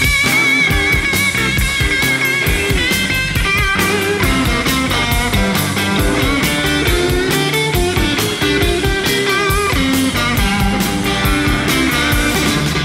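Live electric blues jam: electric guitars play lead lines with bent, wavering notes, opening on a long held bend, over bass and a steady beat.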